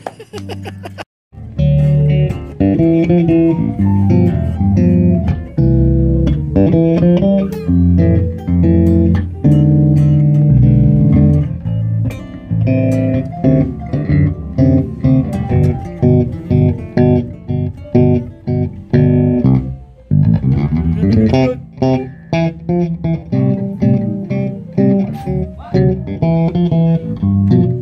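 Electric bass guitar played through an amp in a busy melodic line of quick plucked notes, with an acoustic guitar playing along. The sound drops out briefly about a second in.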